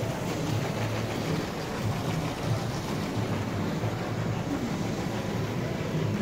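Steady background din of a large exhibition hall floor: a constant low rumble of hall noise and distant voices.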